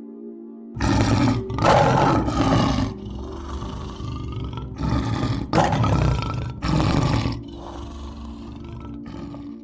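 A big cat roaring: six loud roars in two groups of three, with a pause of about two seconds between the groups. A steady low drone runs underneath.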